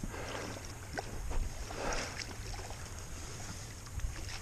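Wind rumbling on the microphone, with a few faint water splashes from a hooked steelhead thrashing at the surface close to the bank.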